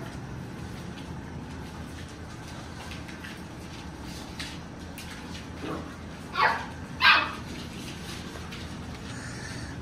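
Pups yipping during play: a couple of quieter yips, then two loud, sharp yips in quick succession about six and seven seconds in, over a steady low hum.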